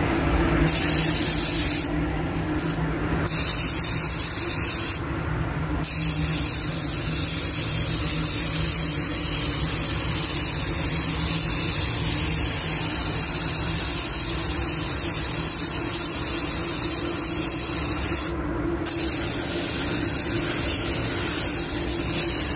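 Automotive paint spray gun hissing steadily as a second coat of paint goes on, the spray cutting out briefly a few times. A low steady hum runs underneath.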